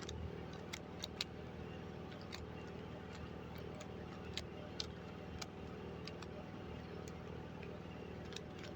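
Rubik's cube being twisted by hand to scramble it: scattered, irregular sharp clicks of the plastic layers turning, over a steady low hum.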